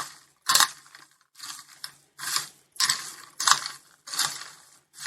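Crisp fried sago chivda with peanuts being tossed and stirred, a dry rattling crunch repeated in short strokes about every two-thirds of a second.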